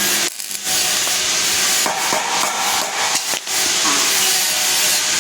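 Electric arc welding: the arc gives a steady, loud crackling sizzle, broken off briefly twice.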